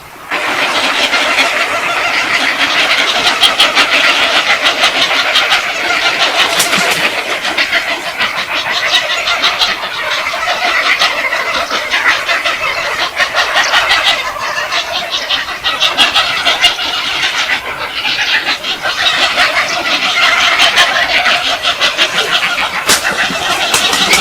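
A flock of birds calling noisily at feeding: dense, overlapping squawks and chatter with sharp clicks, starting abruptly just after the start.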